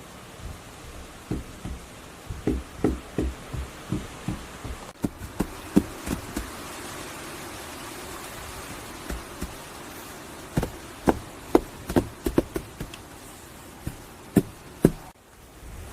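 Irregular knocks and taps of wood being handled and struck during primitive hut building, in small clusters, over a steady outdoor hiss.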